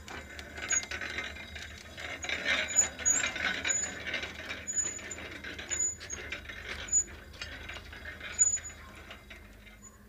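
Hand-worked geared borewell winch clicking and clanking irregularly as its steel wire-rope drum turns, with short high squeaks, while it hauls a stuck submersible pump up the borewell. It grows fainter near the end.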